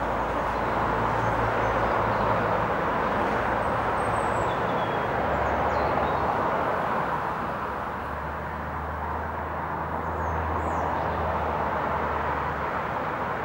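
Road vehicles going past: a steady engine drone and tyre noise, with the drone dropping lower about five seconds in. A few faint bird chirps come through above it.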